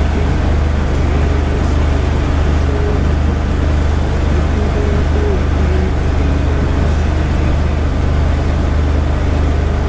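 Mud motor pushing a flat-bottom mud boat at running speed, a steady low engine drone, with water rushing and splashing along the hull.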